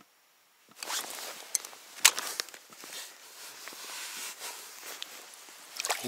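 Rustling and crunching of a jacket sleeve and hands against snow and ice as a fisherman pulls a hooked grayling up through an ice hole by hand. It starts about a second in, with a sharp click about two seconds in.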